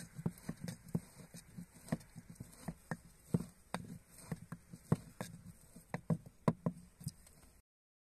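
Wooden pestle pounding garlic cloves in a wooden mortar: a run of dull, irregular knocks, about two to three a second, that stop abruptly near the end.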